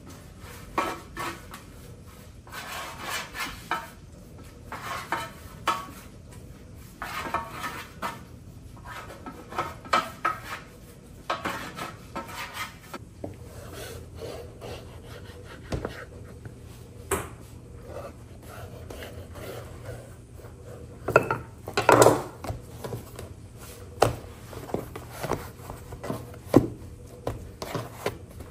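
A pastry brush swept back and forth over a metal baking tray in repeated strokes, then a knife cutting dough on a wooden board, with knocks and scrapes against the wood, loudest about two-thirds of the way through.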